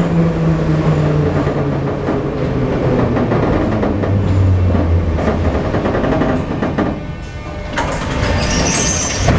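An 81-717.5 metro train running, heard inside the passenger car: rumbling wheels and a motor drone that falls steadily in pitch as the train slows. Near the end the sound eases and there is a brief high-pitched sound.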